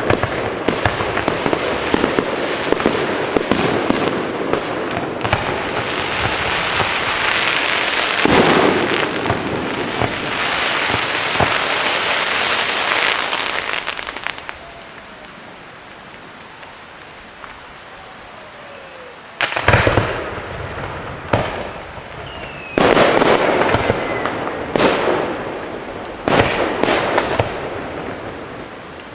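Fireworks display: dense crackling and bangs for about the first fourteen seconds, then a quieter lull with a couple of faint falling whistles, then three loud bursts a few seconds apart, each trailing off in crackle.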